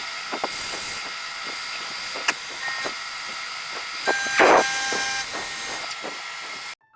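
CNC milling machine cutting metal plate: a steady spindle whine over a loud hiss, with scattered clicks and a louder burst about four and a half seconds in. It cuts off suddenly near the end.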